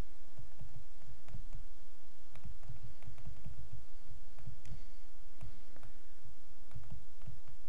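Stylus tapping and scraping on a tablet screen during handwriting: scattered light clicks over irregular soft low thumps.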